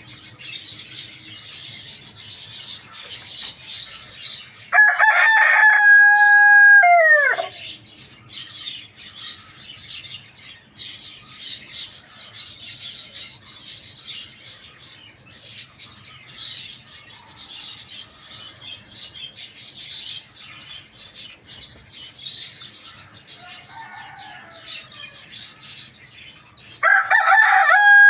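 A rooster crows twice, about 5 s in and again near the end, each crow a loud held cock-a-doodle-doo that drops in pitch as it ends. Between the crows small birds chirp steadily.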